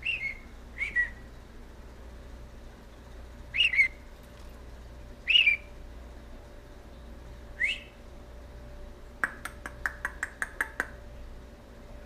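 Budgerigar giving short single chirps, five of them a second or two apart, then a quick run of about eight sharp, clicky chirps near the end.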